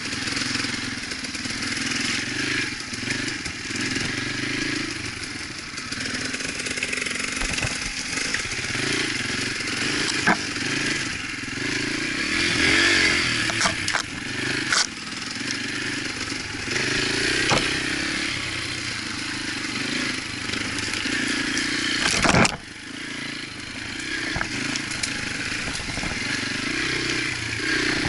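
Yamaha TTR125's single-cylinder four-stroke engine running steadily while the dirt bike is ridden along a rough, muddy trail. The bike rattles, and a few sharp knocks come from bumps in the trail; the loudest is about two-thirds of the way through.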